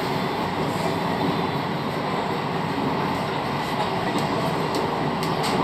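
Kuala Lumpur MRT train running at speed through a tunnel, heard from inside the car as a steady rumble of wheels on rail, with a few faint clicks near the end.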